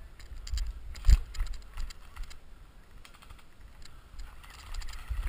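Footsteps and rustling through dry grass and brush, with many small uneven clicks and crackles and low thuds as the body and gear move. One louder knock comes about a second in.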